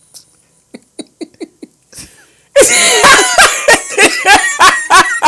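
Men laughing: a few faint chuckles at first, then loud hearty laughter from about halfway through, a quick regular run of 'ha' sounds.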